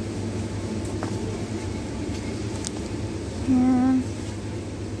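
Steady low indoor hum of a grocery store, like refrigeration or air-conditioning noise. About three and a half seconds in, a person's voice briefly sounds one short held note.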